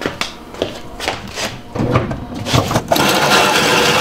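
A few short knocks and clunks, then from about three seconds in a steady rough rubbing as a thick, stiff shoreline power cable is pushed through a hole in the bus's wooden wall.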